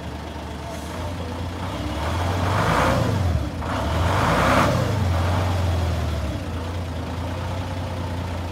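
Engine of an old Silverdalens Mekaniska Atlet 6-ton forklift running, revved up twice in quick succession a couple of seconds in, then settling back to a steady idle.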